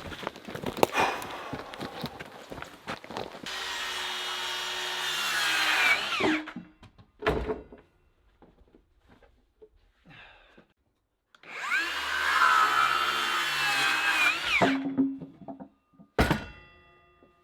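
Wooden boards knocking and thunking, then a power tool run twice for about three seconds each, its pitch dropping as it stops each time, with another sharp knock near the end.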